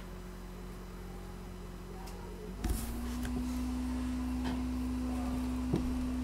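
Steady low hum with no speech. About two and a half seconds in there is a click, after which the hum is louder and slightly higher. A few faint ticks sound over it.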